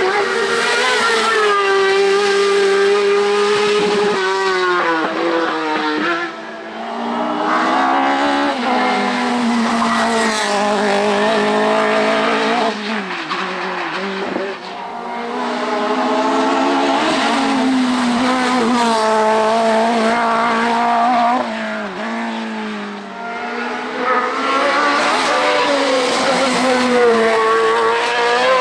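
Race car engines at hard throttle, the engine note climbing with revs and dropping back at each gear change, several times over.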